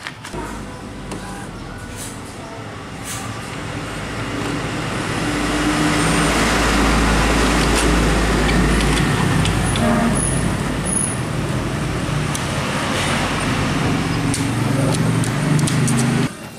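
A heavy truck's engine runs close by among road traffic. Its low rumble swells about five seconds in, and the whole sound cuts off suddenly near the end. Under it, an Epson L120 inkjet printer feeds and prints a sheet of clear PET film.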